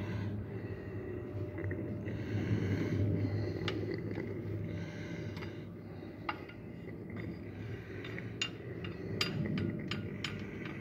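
Scattered light metallic clinks and clicks of tools and parts, more of them in the second half, over a steady low hum.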